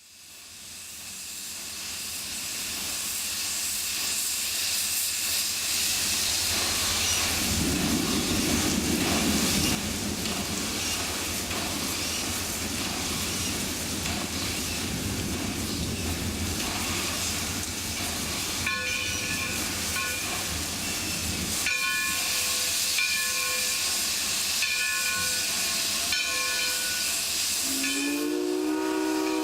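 Alco 2-8-0 steam locomotive hissing steadily, with a low rumble through the middle and short repeated tones later on. Near the end its steam whistle sounds, rising in pitch.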